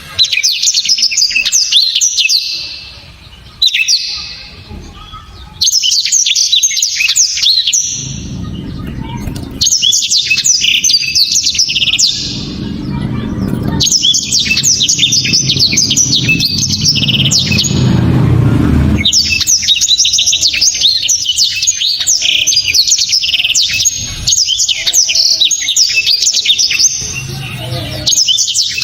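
Blackthroat (black-throated canary) singing long phrases of fast, sharp, high twittering, broken by short pauses. A low rumble runs underneath through the middle stretch.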